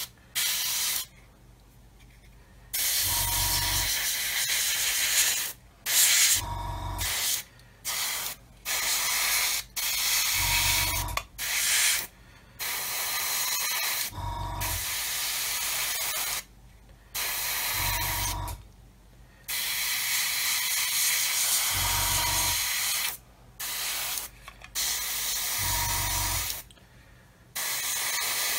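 Iwata airbrush spraying paint in repeated on-off bursts of hiss, each from under a second to several seconds long. A short low hum comes in about every four seconds.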